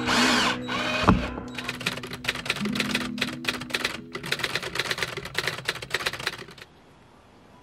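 A cordless drill-driver whirs for about a second, driving a screw. Then comes a rapid run of typewriter key clacks, a typing sound effect, over background music.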